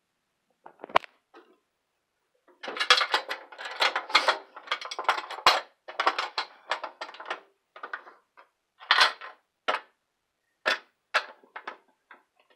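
Close-up handling noise: a single knock about a second in, then a few seconds of dense clattering and scraping, followed by a few separate knocks and rattles near the end.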